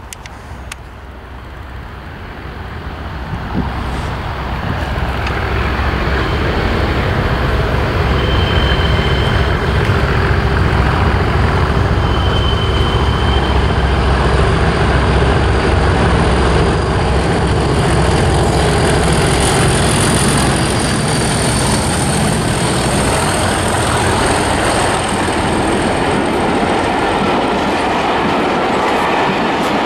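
Two British Rail Class 37 diesel-electric locomotives working together under power, their English Electric V12 engines approaching and passing close by. The deep engine rumble builds over the first few seconds and then holds loud, with a thin high whistle-like tone over it in the second half.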